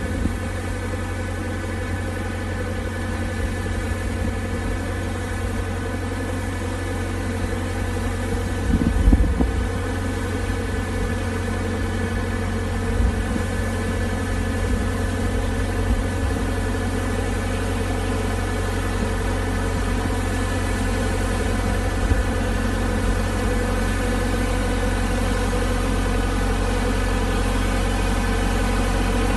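Tractor engine running steadily under load as it powers a side-mounted hydraulic rotating brush, making a continuous hum of many even tones. There is a brief low swell about nine seconds in, and the sound grows slightly louder toward the end.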